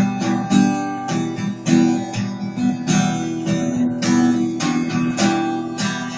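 Acoustic guitar strumming chords in a steady rhythm, about two strokes a second.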